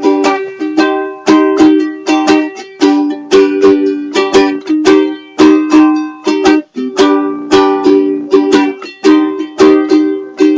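Ukulele strummed in a steady rhythm, about two to three chord strums a second with changes of chord, played by a beginner still learning the song.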